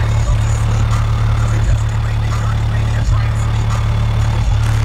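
Very loud, sustained low bass note from a car audio system of four 18-inch SMD subwoofers, heard outside the truck. The note breaks briefly about every second and a half, like a repeating bass beat.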